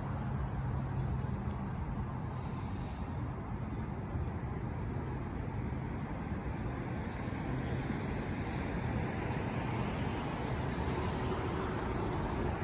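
Steady hum of distant city traffic, a low even rumble of engines and tyres with no single vehicle standing out.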